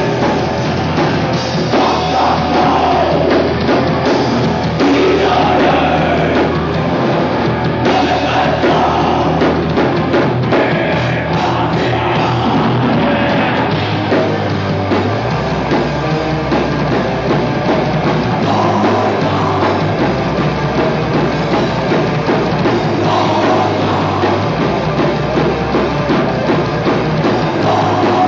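Black metal band playing live: loud, dense distorted electric guitars, bass and drum kit in one unbroken wall of sound, the low bass notes shifting pitch several times.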